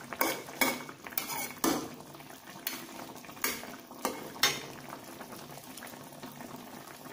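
A spatula knocks and scrapes against the pan as tofu and eggs are stirred in a simmering sweet soy sauce that is being cooked down. There are about eight irregular strokes over the first four and a half seconds, then only the soft bubbling of the simmer.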